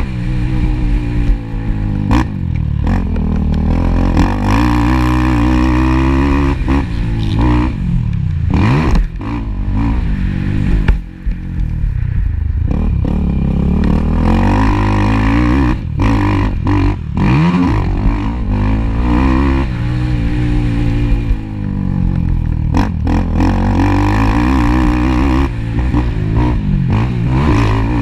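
Racing ATV engine noise on a motocross track: the engine is revved hard, its pitch climbing and dropping again and again as the quad accelerates and shifts, with scattered knocks and clatter.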